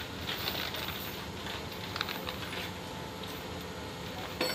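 Metal tie-down chains clinking now and then as they are handled, over a steady low hum.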